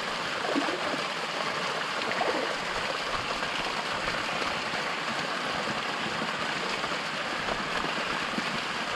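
Small waterfall pouring down a rock face and splashing steadily into the rocks and pool below.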